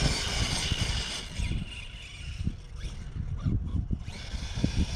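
A distant RC monster truck driving fast across grass, heard through wind buffeting the microphone. A broad rush of noise in the first second and a half gives way to irregular low thumps.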